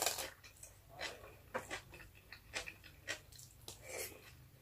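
Close mouth sounds of eating with the hands: soft chewing, lip smacks and wet clicks on rice and fried milkfish, with a suck at the fingers about four seconds in.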